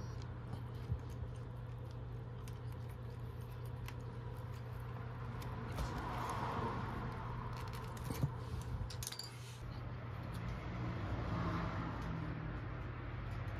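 Small clicks and rattles of wires, spade connectors and pliers being handled in a router's plastic motor housing, over a steady low hum.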